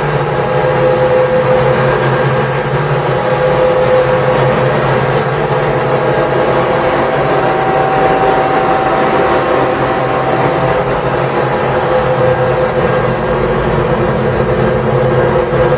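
An engine running steadily at constant speed: a continuous drone with a steady hum that holds the same pitch throughout.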